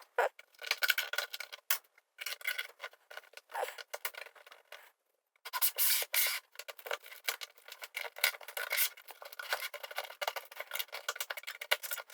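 LEGO pieces being pried and pulled apart by hand: a dense run of small plastic clicks, scrapes and rubbing, with a short pause about five seconds in.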